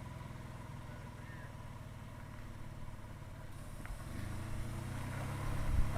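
Pickup truck engine running at a low idle, then revving up under load about four seconds in as the truck crawls up a rock ledge, with a few low thumps near the end.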